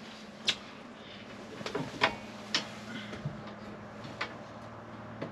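A handful of short clicks and knocks as a motorhome's overhead locker and pull-out TV bracket are handled, over a faint steady low hum.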